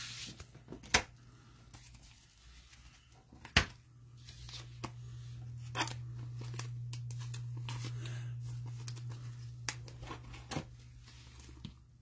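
Trading cards and their plastic and foil packaging being handled: rustling and crinkling with scattered sharp taps and clicks, over a steady low hum.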